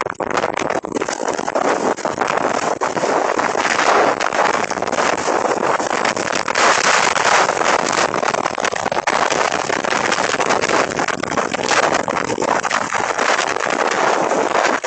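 Storm wind gusting hard: a dense rushing noise that swells and eases, loudest about halfway through, with wind buffeting the microphone.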